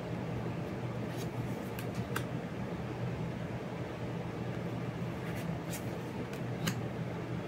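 Thin paper cards being turned over and laid down on a stack, giving a few light clicks and snaps: a cluster of three about a second in and another near six seconds. A steady low hum like a fan runs underneath.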